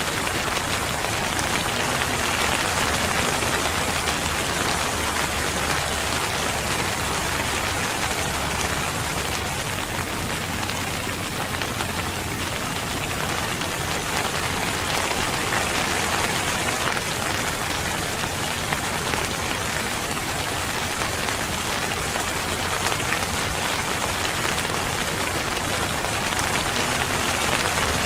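Steady rain falling on surfaces: an even, unbroken hiss.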